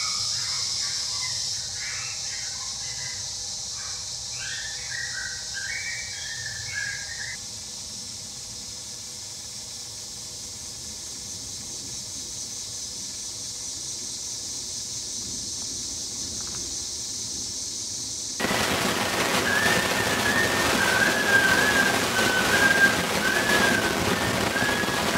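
Woodland ambience: a steady high drone with bird-like chirps during the first several seconds. About 18 seconds in, the sound switches abruptly to a louder, even hiss like rain, with a wavering whistle-like call over it.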